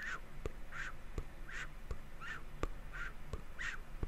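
Close-miked ASMR mouth sounds: short breathy, wet sounds from the mouth repeated in a steady rhythm about every three-quarters of a second, with small clicks between them.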